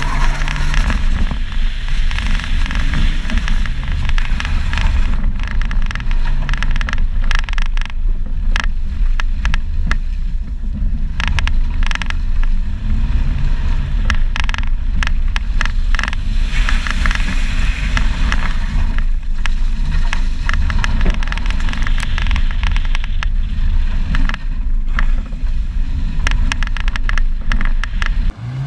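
Car engine revving up and down as the car accelerates, brakes and turns through an autotest course, heard from a camera mounted outside the driver's door. Throughout there is heavy rumble and crackle from the tyres on the loose dirt surface.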